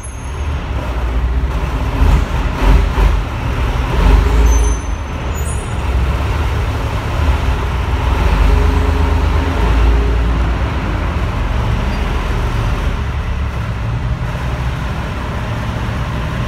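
Chieftain main battle tank's Leyland L60 multi-fuel engine running as the tank moves slowly on its steel tracks, with track clanks and knocks about two to four seconds in and a few brief high squeaks just after.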